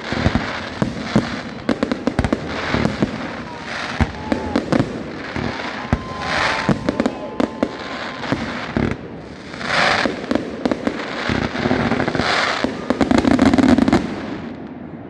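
Fireworks display: a dense, continuous run of sharp bangs and crackling from exploding shells, easing off just before the end.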